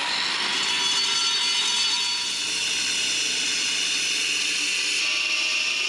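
Handheld angle grinder cutting through an old clay drain pipe: a steady high whine over the rasp of the disc grinding into the clay, held at an even level without letting up.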